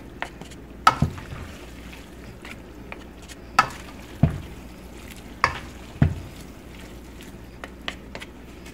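Spaghettini being tossed in a deep pan with a wooden spatula and a spoon: a soft shuffle of pasta strands, broken by sharp clacks of the utensils against the pan, about six of them in three pairs.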